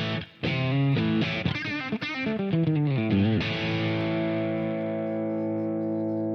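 Music on distorted electric guitar: a quick run of changing notes, then a chord held ringing from about halfway.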